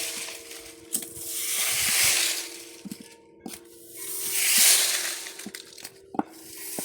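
Sea waves washing in and drawing back, two swells rising and fading a couple of seconds apart, with sharp clicks and rattles like stones knocking together, over a steady low hum.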